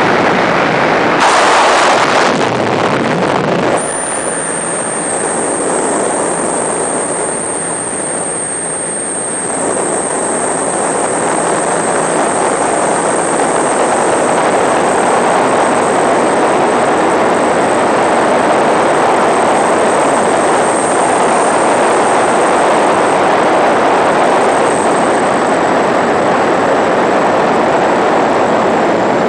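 Titan Tornado light aircraft's engine and propeller running, mixed with rushing wind, heard from on board during the landing approach. There is a louder rush of noise for a few seconds near the start, and after that a thin high whine that slowly falls.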